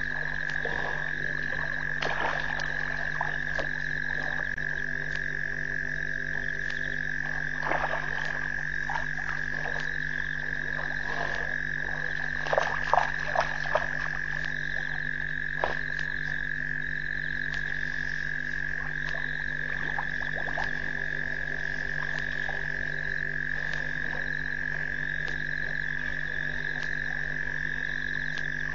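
Frog chorus: a steady high-pitched trilling, with scattered louder croaks and clicks and three sharper ones close together about halfway through.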